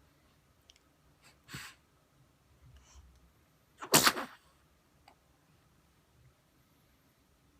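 A baby sneezes once, sharply, about four seconds in, after a smaller breathy sound at about a second and a half.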